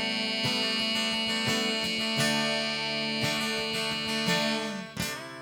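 Instrumental break in a song: acoustic guitar strumming under a long held note, dying away about five seconds in.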